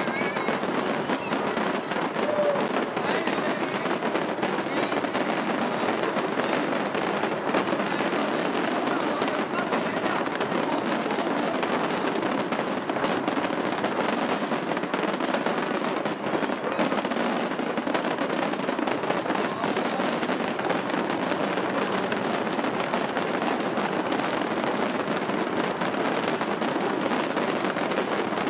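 A fireworks display firing without pause: a dense, steady stream of crackling and popping.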